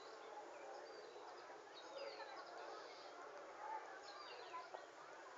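Faint outdoor background hum with scattered short, high bird chirps; no clear cat yowling.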